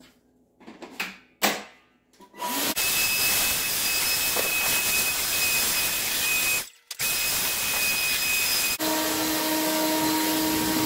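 A few knocks, then a vacuum cleaner starts and runs with a steady whine. It cuts out for a moment near the middle and comes back, and near the end its whine shifts to a lower pitch.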